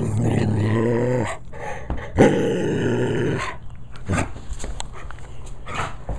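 A dog play-growling while being handled: a long, deep, pitched growl, then a second, rougher growl about two seconds in, followed by two short breathy sounds.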